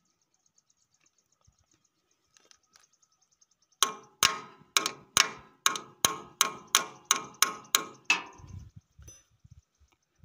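Spanner tapping a metal fitting on a mini power tiller's gearbox housing: about a dozen sharp metallic strikes, a little over two a second, each ringing briefly. The strikes drive the fitting, sealed with Teflon tape against a gear-oil leak, a little further in.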